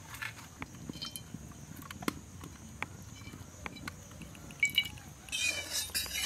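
Scattered light clicks and crackles from a wood fire in a clay stove. About four and a half seconds in, a metal spatula clinks against an aluminium kadai holding mustard oil, then scrapes around the pan.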